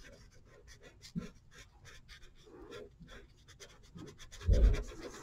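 Colouring in on paper: quick scratchy back-and-forth strokes, about six a second, with a dull bump near the end.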